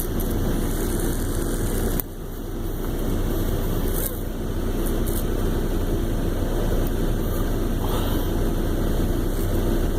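Steady engine and road noise inside a truck's cab, with a brief drop in level about two seconds in.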